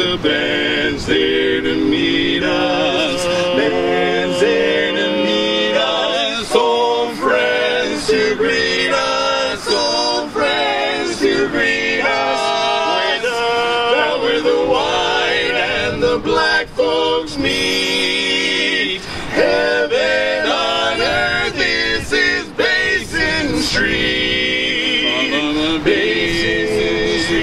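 Four-part male barbershop quartet (tenor, lead, baritone and bass) singing a cappella in close harmony, the voices moving together in chords.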